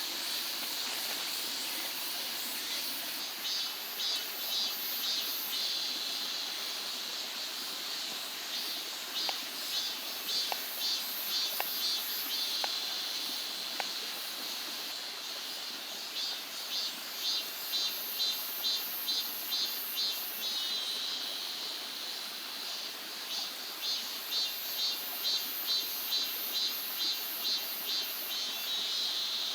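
Insects calling in repeated bouts of rhythmic high pulses, about two a second, over the steady hiss of a mountain stream. A few faint ticks come in the middle.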